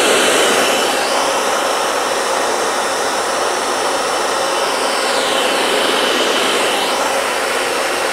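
Small handheld electric air blower running steadily, a loud rush of air with a high motor whine, blowing through a face-down funnel that holds a ping pong ball up in its air stream. The whine shifts in pitch a few times.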